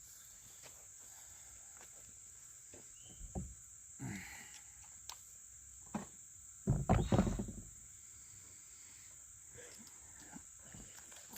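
Steady high-pitched chirring of insects, with scattered handling knocks and rustles, the loudest a short cluster about seven seconds in.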